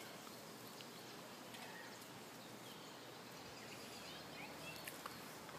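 Faint outdoor ambience: a steady hiss with a few short, faint bird chirps and small clicks scattered through it.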